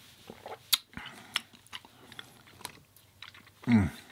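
Close-miked chewing with scattered wet mouth clicks. Near the end comes a short, loud hum-like vocal sound that falls in pitch.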